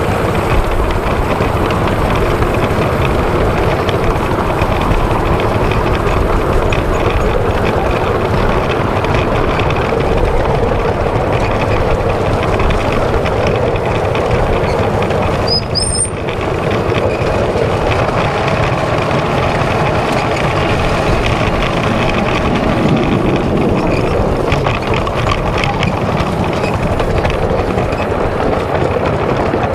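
7¼-inch gauge miniature steam locomotive running along the track under steam: a steady, loud rush of exhaust, escaping steam and wheels on the rails, recorded from on board. The sound dips briefly about halfway through.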